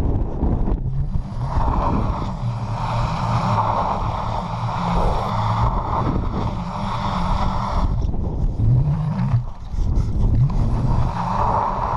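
Electric bike spinning its rear tyre in snow during donuts: a steady hiss of the tyre churning snow over the electric motor's low hum. The hiss drops away for a couple of seconds about two-thirds of the way through, while the motor's pitch rises and falls.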